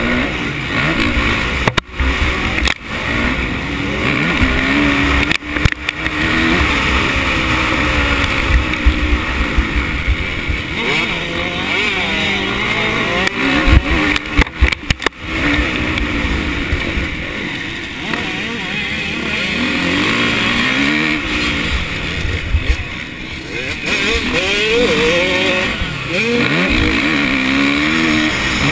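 Motocross dirt bike engine revving up and easing off over and over while the bike is ridden hard round the track, its pitch rising and falling with the throttle. There are a few brief sudden drops in the sound, a cluster of them about 14 to 15 seconds in.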